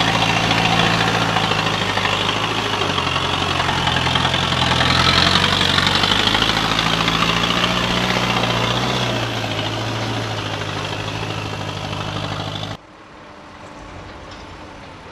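Loaded Isuzu ELF dump truck's four-cylinder diesel engine running as the truck drives slowly past close by, its note shifting a little in pitch. About thirteen seconds in the sound cuts abruptly to a much quieter, distant engine.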